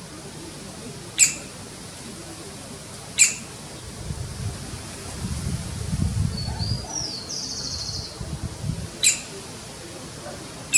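A woodpecker giving single sharp, piercing call notes, four in all, spaced irregularly. Midway another short buzzy twitter is heard, along with a low rumble for several seconds.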